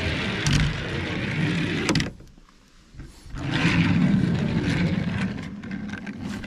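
Small toy van's plastic wheels rolling across a plastic board, pushed by hand: a rough rolling rumble in two goes, with a short pause between them a couple of seconds in.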